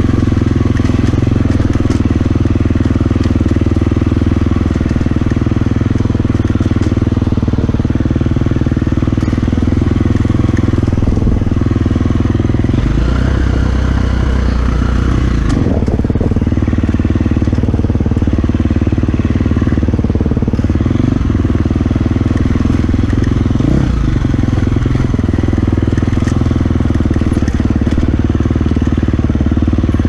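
Dirt bike engine running steadily as the bike rides along a rough trail, heard close up from the bike's own camera.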